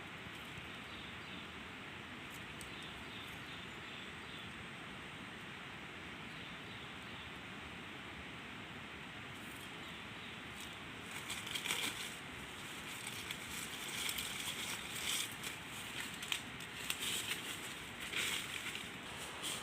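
A steady hiss, with irregular rustling and crackling that starts about halfway through and grows busier.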